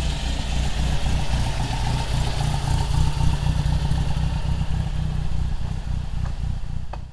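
MG TC's 1250 cc XPAG four-cylinder engine running as the car drives past and away, a low, steady exhaust pulse.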